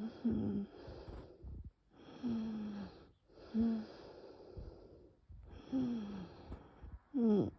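Labored, wheezing breathing of a person in a severe asthma attack, the sign of bronchospasm narrowing the airways. About six breath sounds follow one another, each with a whistling tone that often slides down in pitch, and there is no coughing.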